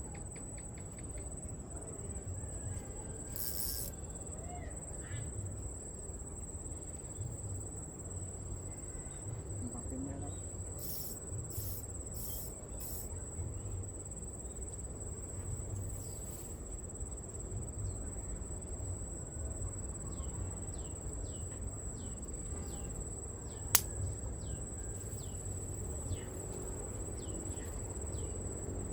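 Insects calling in one continuous high-pitched tone over a low outdoor rumble, with a run of short falling chirps in the second half. One sharp click sounds about 24 seconds in.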